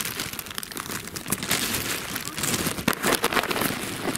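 Thin plastic bag crinkling and rustling as it is folded open by hand, a dense run of quick crackles.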